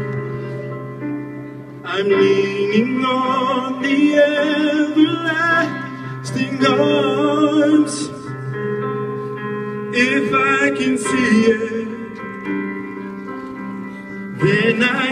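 Electric keyboard playing sustained chords through PA speakers, with a man singing phrases over it that come in about two seconds in, break off around eight seconds, and return twice.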